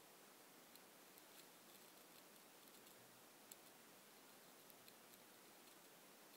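Near silence: faint room hiss with a few scattered faint ticks, one a little louder about three and a half seconds in.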